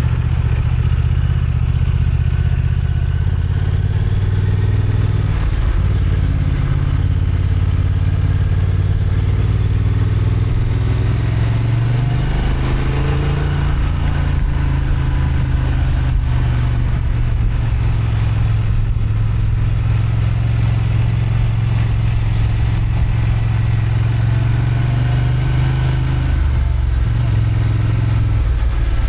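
Honda XL750 Transalp's parallel-twin engine running under load on a climb, heard from on the bike. The engine note holds steady for long stretches, and its pitch dips and climbs again about 12 seconds in and shifts once more near the end as the throttle and gears change.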